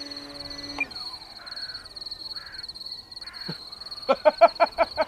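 Steady high insect trilling throughout. The model plane's motor hum winds down and stops under a second in. About four seconds in, a quick run of loud, harsh calls, typical of a crow cawing.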